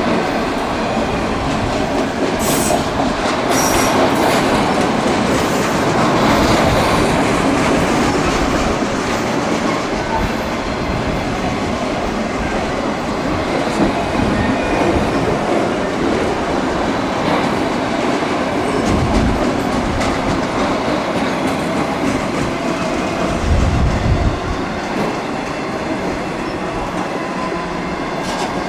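Freight train cars rolling past close by, a steady loud rumble and rattle with wheels clacking over the rail joints. There is a little high wheel squeal early on and a brief low thump about 24 seconds in.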